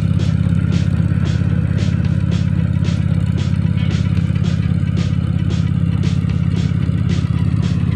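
Briggs & Stratton Vanguard 14 HP V-twin on a BCS two-wheel walk-behind tractor, running steadily under load while its rotary tiller churns soil. Its no-spark and no-fuel faults are fixed. A regular clatter comes about twice a second over the engine note.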